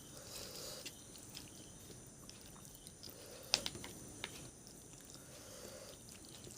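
Quiet mouth sounds of someone chewing food, with scattered soft clicks and one sharper click about three and a half seconds in.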